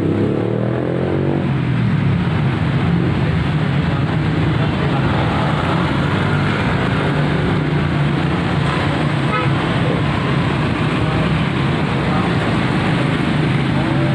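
Busy street traffic: a stream of scooters and small motorcycles with some cars and a truck moving past at low speed, their engines making a steady, continuous drone.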